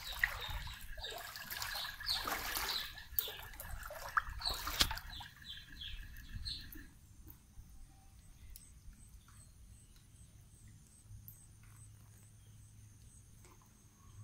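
Floodwater splashing and sloshing for about the first five seconds. It then goes quieter, leaving a steady high-pitched insect chirping.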